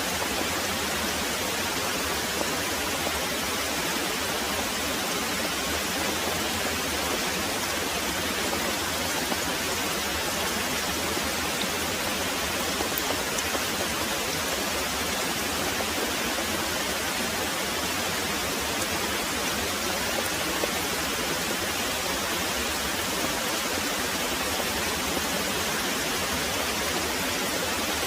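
Very heavy rain falling steadily: a dense, even hiss of rainfall that does not change, with no thunder.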